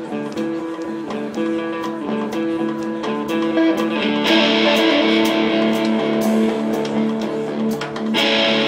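Live rock band playing: two electric guitars and a drum kit, with steady drum hits under held guitar notes. The music gets louder and brighter about four seconds in.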